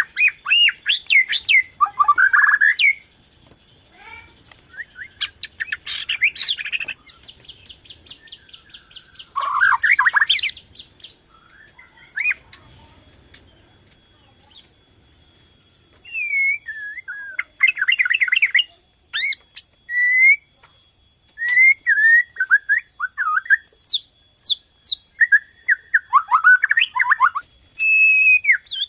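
White-rumped shama (Borneo murai batu) singing in full song: varied whistled phrases and chattering notes with brief pauses, including a rapid buzzy trill about seven seconds in.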